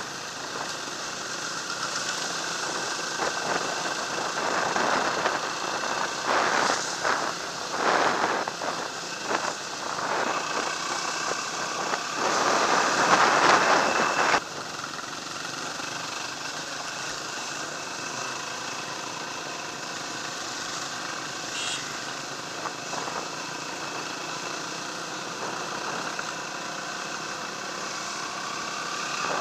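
Dirt bike engine running while being ridden, heard from the bike itself. It is louder through the first half, drops suddenly about halfway through, and then runs steadily.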